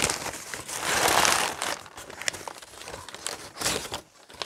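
Crumpled brown kraft packing paper rustling and crinkling as hands pull it aside in a cardboard box, loudest about a second in, then lighter crinkles with another burst near the end.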